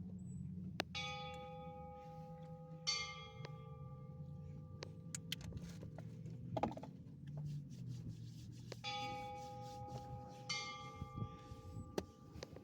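San Xavier Mission church bell struck in two pairs: two strikes about two seconds apart, each left ringing, then after a pause of about six seconds another pair. A sharp thump falls midway, over a steady low rumble.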